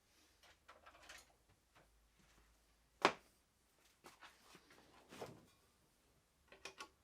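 Tools and motorcycle parts being handled: scattered light clicks and scrapes, a sharp knock about three seconds in, a softer knock around five seconds, and a few quick ticks near the end.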